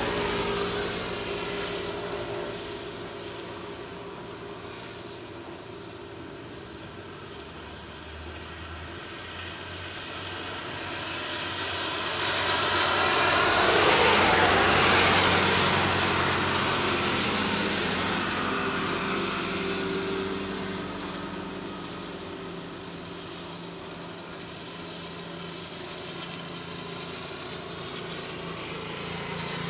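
A motor vehicle passing by: its sound swells to a peak about halfway through, then fades away, over a steady low engine hum.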